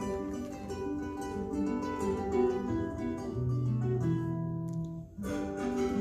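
Andean folk ensemble playing live, led by quick plucked strings from charango and guitar. A low note is held for a second or two in the middle, and the music breaks off for an instant about five seconds in before resuming.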